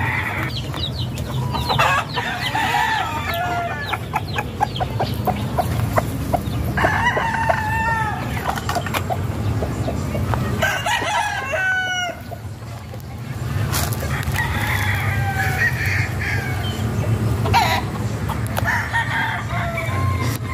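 Gamecock roosters crowing again and again, several birds calling one after another and over each other, over a steady low rumble.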